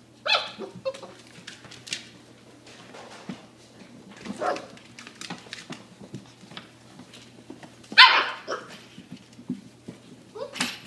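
Irish Water Spaniel puppies barking: three short barks a few seconds apart, the last the loudest.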